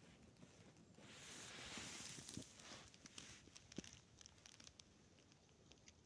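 Faint crunching footsteps in deep snow: a longer swishing crunch from about one to three seconds in, then light scattered ticks.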